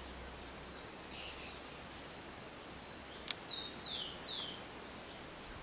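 Steady background hiss. About three seconds in, a bird sings a short phrase of quick falling whistled notes, with a single sharp click at its start.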